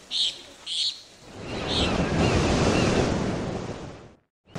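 Three short high blips, then a rush of noise like surf that swells up, holds and fades away, cutting off just before the end.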